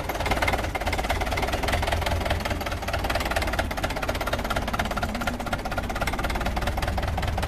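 IFA Pionier tractor's two-cylinder diesel engine running steadily at idle, with a rapid, even beat of firing strokes and a deep low rumble.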